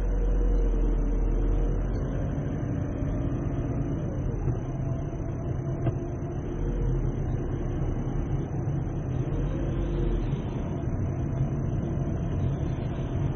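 Steady low rumble of a Škoda Octavia's engine and tyres heard inside the cabin as the car moves slowly in traffic.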